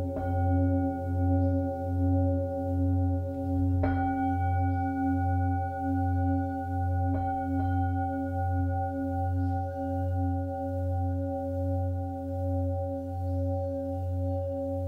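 Sustained bell-like ringing tones over a low hum that swells and fades about one and a half times a second, struck afresh about four times, twice close together in the middle, like a meditative singing-bowl soundtrack.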